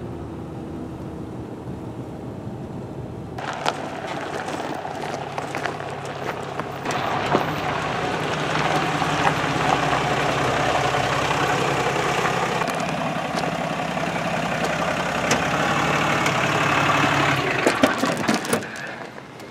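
Pickup truck towing a large enclosed trailer pulling up, its engine running with tyre noise on gravel. The sound is quieter for the first few seconds, louder and steady from about four seconds in, and drops away near the end, followed by a few clicks.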